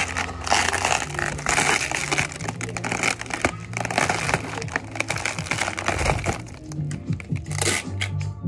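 Background music with a steady bass line, with crinkling and clicking sounds over it.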